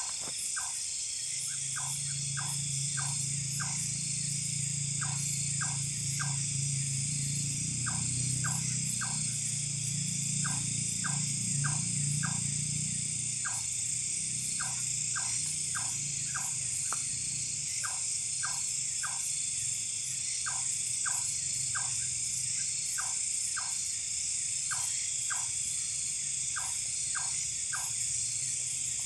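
Night chorus of forest insects, a steady high-pitched drone, with frogs calling in short clicks at about two or three a second in little runs. A low rumble runs under them through the first half and fades out.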